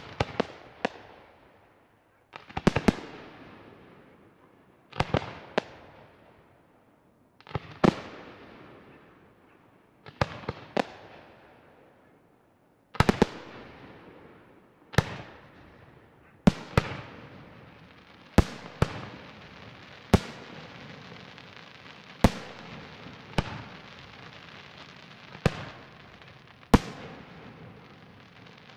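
Aerial firework shells bursting, a sharp bang every one to three seconds, often in quick pairs or threes at first, each trailing off in a rolling echo. From about halfway a steady hiss fills the gaps between the bangs.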